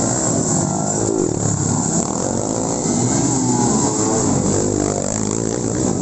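Racing motorcycles' engines revving hard as they ride along a dirt track, the pitch climbing and dropping several times.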